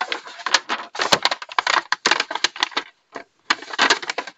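Paper towel being rubbed around inside a small metal baking pan to dry it: a quick run of scratchy rustles and clicks, with a short pause about three seconds in.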